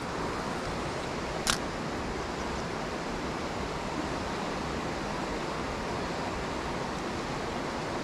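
Shallow mountain stream rushing steadily over stones, with one short sharp click or swish about one and a half seconds in.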